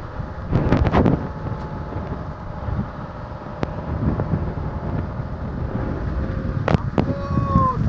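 Strong wind buffeting the microphone aboard a fishing boat in stormy seas: a rough, gusty rumble with a few sharp knocks.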